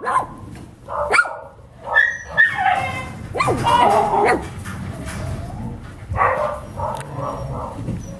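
Three-week-old puppies whimpering and yelping: a run of short, high cries that rise and fall in pitch, softer after about the first four seconds.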